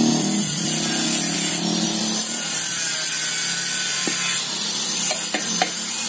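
Stainless-steel exhaust tubes scraping and rubbing against each other as they are worked together by hand. From about five seconds in, light metal taps on the pipe, about three a second, each with a short ring.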